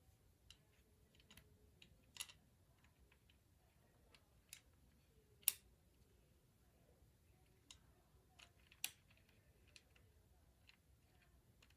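Faint, scattered clicks and light taps of small plastic toy parts being handled while reassembling a toy's wing pack. A few clicks are sharper, the loudest about halfway through.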